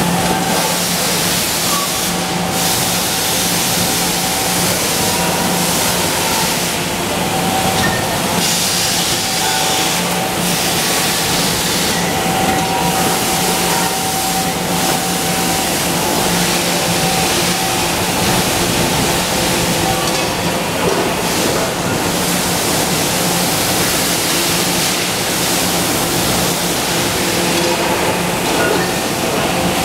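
Steady machinery noise on an aluminium cookware production line: a loud, even hiss with a steady low hum and a thin tone that comes and goes.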